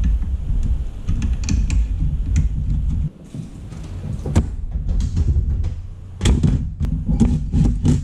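Clicks, taps and knocks of hands working on a desktop PC case and its parts, over a low rumble that cuts off abruptly about three seconds in. The knocks come thickest near the end.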